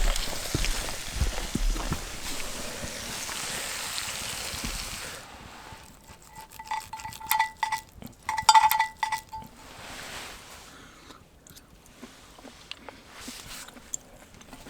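A steady hiss for about five seconds, then metal cookware clinking and ringing, a pot or mug struck several times over a few seconds. Quieter small handling sounds follow.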